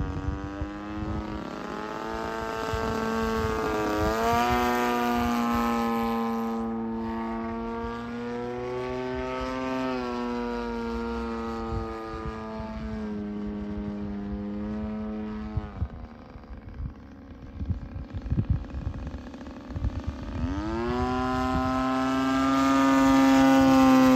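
DLE 55 single-cylinder two-stroke gas engine and propeller of a large RC aerobatic plane in flight, a steady drone that shifts in pitch as it manoeuvres. About two-thirds of the way in, the drone drops away for several seconds, then returns with a rising pitch and grows loudest near the end as the plane passes closer.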